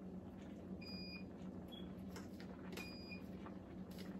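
A short, faint electronic beep repeating about every two seconds, twice here, over a steady low hum, with a few light clicks and taps of containers being handled.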